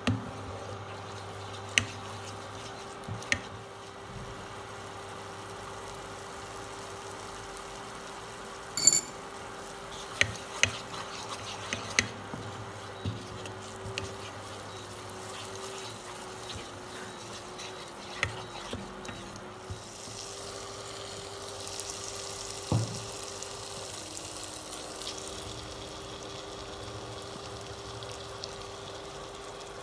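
Thick onion and spice masala frying in a non-stick pan, sizzling while a wooden spatula stirs and scrapes through it, with sharp knocks of the spatula against the pan every so often. A steady hum runs underneath.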